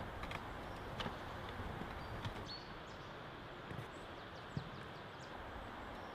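Woodland ambience: a steady outdoor hiss with a few faint knocks and rustles and scattered short, high bird chirps.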